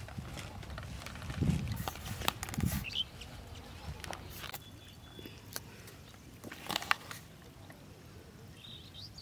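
Rustling and dull thumps of a woven plastic sack being handled, with a few sharp clicks, the loudest about seven seconds in, and a bird chirping briefly.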